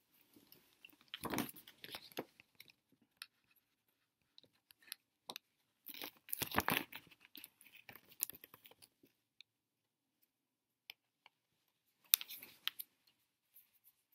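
Handling noise: rustling and clicks from a camera being moved about and a printed product package being handled, in three bouts, about a second in, around six to seven seconds in, and near the end.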